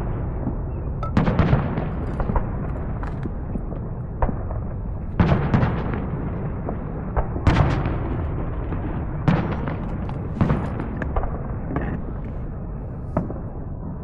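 Fireworks going off: about a dozen sharp bangs at uneven intervals, some in quick pairs, over a steady low rumble of more distant explosions.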